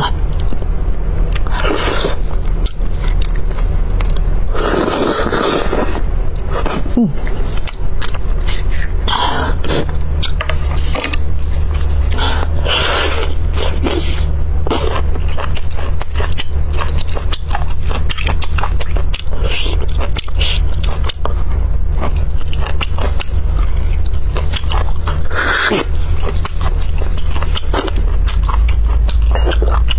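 Close-miked eating of braised beef bone marrow: a spoon scraping marrow out of the bone, sucking at the bone's open end, and wet chewing and lip smacks, in irregular clicks and bursts over a steady low hum.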